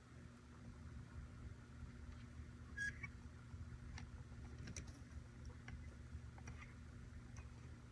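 Faint, scattered small clicks of a hand tool and steel spring against the aluminium valve body of a Ford AX4S transmission, as a spring is worked out of a valve bore, over a steady low hum. The sharpest click comes about three seconds in.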